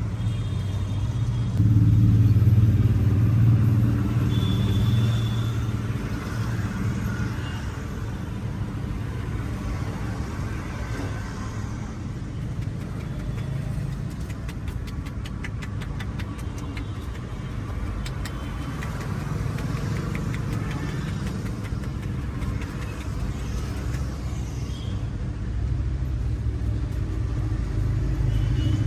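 Street traffic rumbling steadily, swelling from about two to five seconds in as a vehicle goes by. A quick run of light clicks comes about halfway through.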